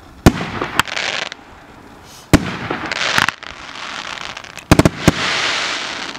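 Fireworks battery (cake) firing: sharp bangs of shells bursting near the start, again about two seconds in and in a quick cluster of several near the end, each followed by a hissing crackle as the stars burn out.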